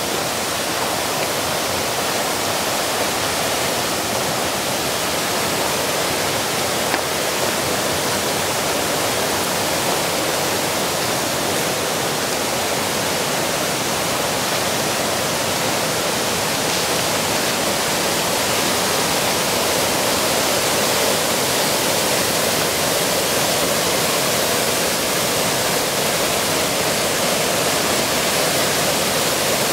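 Steady rushing of water in a mountain stream, an even, unbroken noise.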